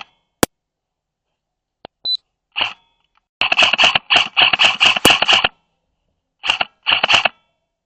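Airsoft electric gun firing in short bursts: a single sharp click, then a few short bursts, a longer string of rapid bursts from about three and a half to five and a half seconds in, and two more short bursts near the end.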